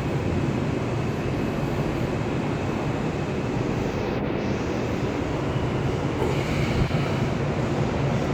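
New York City subway train in motion, heard from inside the car: a steady rumble of wheels on rails and car noise.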